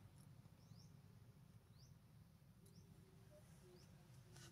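Near silence: faint outdoor background with a handful of short, high, rising chirps spaced roughly half a second to a second apart.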